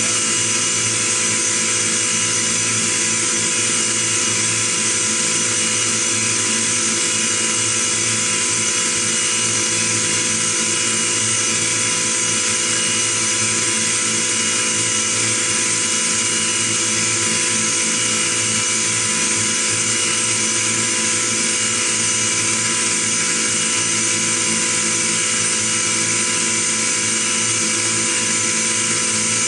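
CNC milling machine's end mill cutting a metal workpiece: a steady machine whine made of several fixed tones over an even hiss, unchanging throughout.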